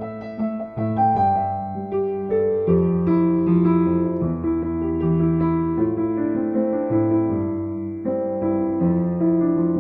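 Background music: a solo piano playing a slow pop-song cover, sustained chords under a simple melody.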